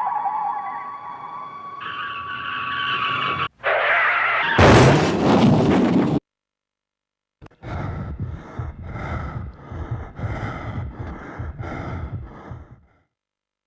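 Skidding screech with steady high tones, then a loud crash lasting about a second and a half that cuts off suddenly into silence. After a pause, rhythmic gasping breaths, about two to three a second, go on for about five seconds and then stop.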